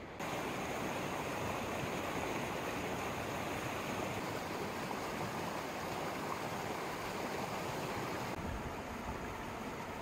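Mountain stream rushing over rocks: a steady rush of water that comes in suddenly just after the start and turns slightly quieter near the end.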